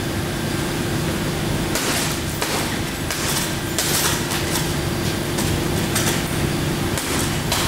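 Hammer blows on a cracked pane of laminated float glass (two 5 mm panes with a 1.52 mm interlayer), struck repeatedly, about one or two blows a second, beginning about two seconds in. The glass is already shattered but the laminate film holds it together, so the hammer keeps hitting without breaking through. A steady hum runs underneath.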